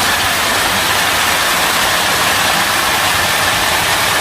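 Large hailstones pelting a car's roof and windshield in a steady, dense downpour, heard from inside the car.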